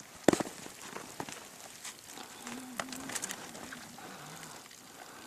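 Rustling and knocks of a woven basket loaded with dried yak dung being handled, with a sharp knock just after the start. A short, low warbling animal call comes twice near the middle.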